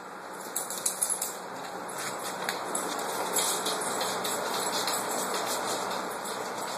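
Dogs' claws clicking and scrabbling on a hard wood-look floor as two cocker spaniels, a puppy and a grown dog, play and move about, over a steady background hiss. The clicks come in scattered runs, thickest about a second in and again around three seconds in.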